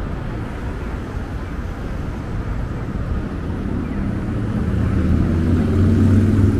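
Street traffic noise with a motor vehicle's engine running: a low hum that grows louder over the last couple of seconds as the vehicle comes closer.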